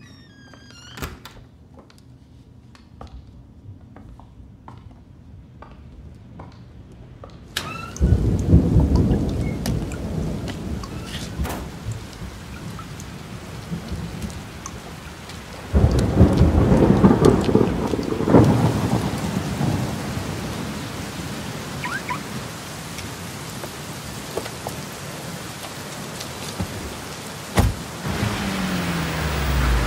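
Film sound effects: quiet, evenly spaced footsteps, then heavy rain sets in suddenly about seven and a half seconds in. Thunder rolls loudly twice, about eight and sixteen seconds in.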